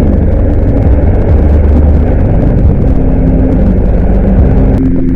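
A boat's engine running steadily with a heavy low rumble, under a rushing noise of wind and water that falls away near the end, leaving the engine's drone.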